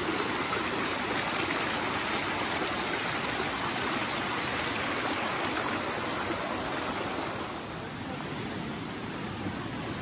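A small rocky creek running over a low cascade: a steady rush of flowing water, a little quieter after about seven and a half seconds.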